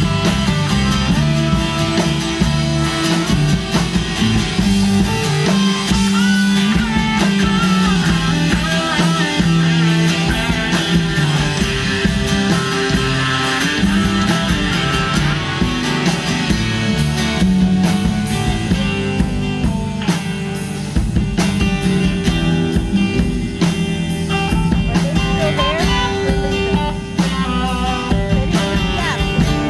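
Live rock band playing instrumentally: a Stratocaster-style electric guitar plays lead lines through its amplifier over bass and drums.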